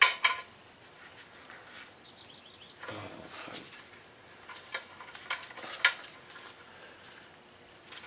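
Scattered light metallic clinks and taps of hand tools and bolts during clutch removal on an engine, with a sharp click at the start and a few more knocks in the second half.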